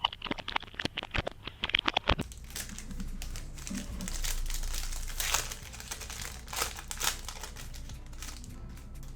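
Wrapper of a Panini Prizm football card pack being torn open and crinkled. A quick run of sharp rips comes in the first two seconds, then softer crinkling with a few louder rustles.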